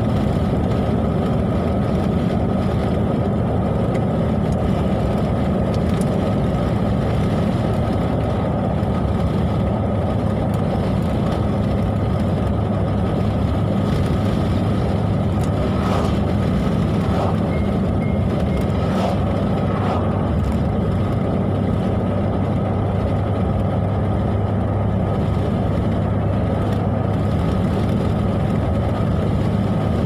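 Steady road and engine noise inside a moving car's cabin.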